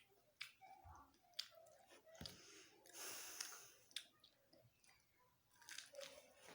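Faint close-up chewing of boiled sweet corn, with scattered wet mouth clicks and a breathy exhale about three seconds in.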